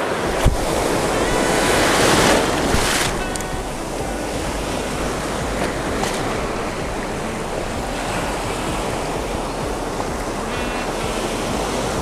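Surf washing in over the shallows, with wind on the microphone; the rush of water swells loudest about two to three seconds in.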